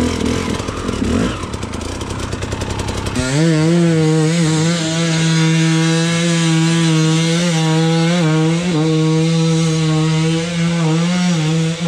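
Two-stroke enduro motorcycle engine, at first running unevenly at lower revs with a rapid rattle, then about three seconds in revving up and held at high, steady revs near open throttle, with brief small dips.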